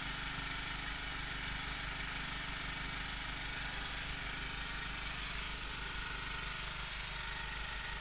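An engine idling steadily, with an even low pulsing hum that does not change.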